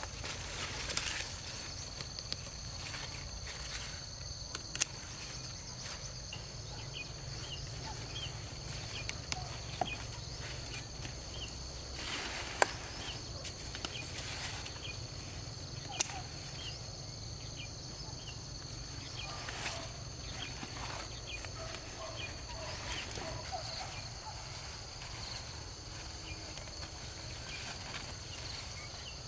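Insects droning on two steady high notes throughout, with footsteps in vegetation and a few sharp snaps and clicks, the loudest about 5, 12 and 16 seconds in.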